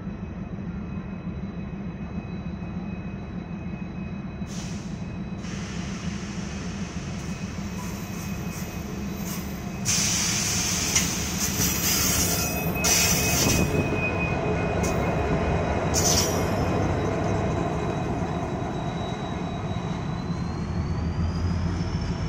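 WDP4B diesel-electric locomotive with its 16-cylinder two-stroke EMD engine running as the train rolls in along the platform, the engine rumble growing louder as the locomotive passes close about ten seconds in. Short bursts of high-pitched wheel squeal come between about ten and sixteen seconds in, then the passenger coaches roll past.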